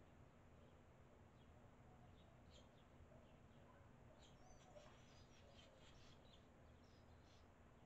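Faint, high chirps and twittering of barn swallows, scattered and thickest around the middle, over a low steady background hum.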